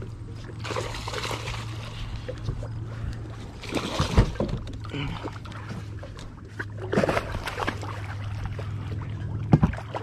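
Water splashing and sloshing as a hooked fish is fought at the side of a fishing boat, with sharp knocks against the hull and a steady low hum underneath.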